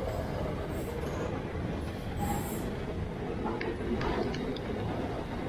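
Container freight train's wagons rolling past at speed: a steady rumble of steel wheels on rail, with a few sharp clicks about three and a half to four and a half seconds in.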